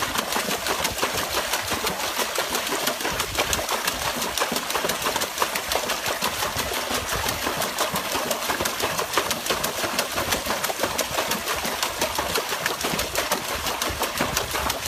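Water splashing and churning fast and steadily as a dog paddles its front legs hard in a plastic tub of water.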